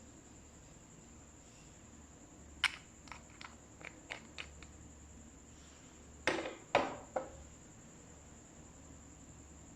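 Slime and makeup being handled in a slime-colouring session: a sharp click, then a quick run of about six small clicks and pops, then three louder pops or knocks a few seconds later.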